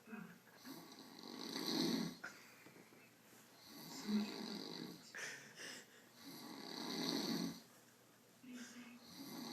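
A man snoring, about four long snores in a row, each swelling and then fading, roughly every two and a half seconds.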